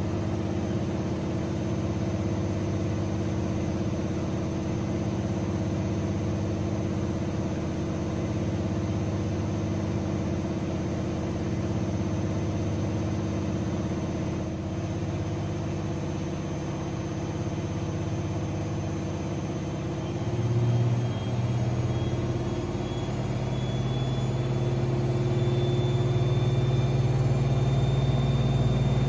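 AEG Lavamat 6610 washing machine spinning its drum with a steady motor hum. About two-thirds of the way through it shifts, grows louder, and a high motor whine starts rising as the spin speeds up.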